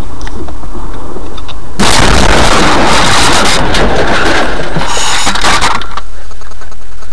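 A car colliding with an oncoming van on an icy road, heard from inside the car: a sudden loud crash about two seconds in, noisy for about four seconds, then dying away to a low hum.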